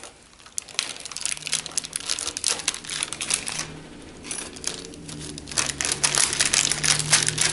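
A large knife rocked down through a slab of set maple toffee lying on parchment paper on a plastic cutting board, the paper crinkling under the blade. It makes a dense run of small clicks, with a short pause about four seconds in.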